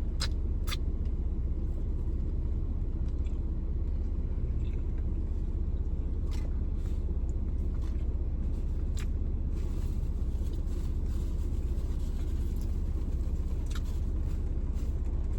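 A steady low rumble runs underneath, with scattered sharp clicks and crinkles from someone eating a steak burrito.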